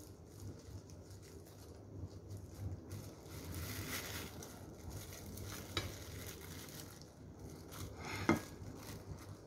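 Plastic food-prep gloves rustling as hands handle sliced century egg, with a light click about six seconds in and a sharper knock against the plate a little after eight seconds. A low steady hum runs underneath.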